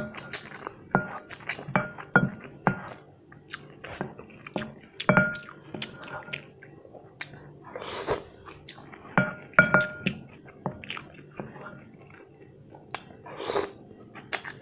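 Eating curry instant noodles: chewing, and wet slurps of noodles about eight seconds in and again near the end. Utensils clink against the glass bowl with a short ring, several times in the first few seconds and again around the middle.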